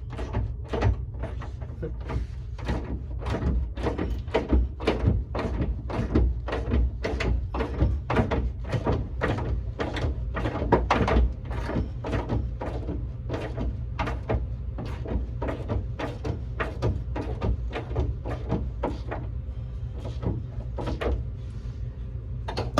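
Hand ratchet wrench tightening a nut on the car's rear suspension, giving a steady run of clicking strokes, about two to three a second.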